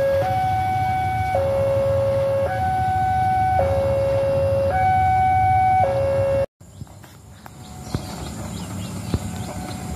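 Railway level-crossing warning alarm sounding a steady high-low two-tone signal, each tone about a second long, over the low rumble of a departing train. It cuts off about six and a half seconds in, leaving quieter outdoor ambience with faint repeated chirps.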